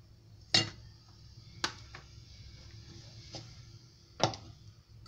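A steel spoon clinking against a kadhai and plate as cooked dry prawns are scraped out and served: four sharp clinks, the first and last loudest.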